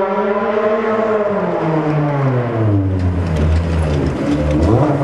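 Open-wheel desert race buggy's engine running hard, its pitch falling over the first few seconds as the car goes by and slows, then short rising revs near the end as it picks its way into the rocks.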